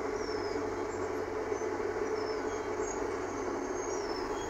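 Alexander ALX400 double-decker bus idling at a stop: a steady engine hum that holds an even level throughout.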